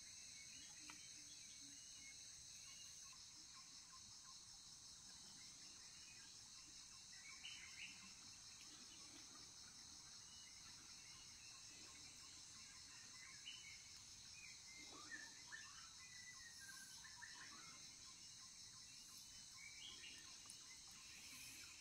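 Faint, steady, high-pitched insect chorus, with scattered short bird chirps.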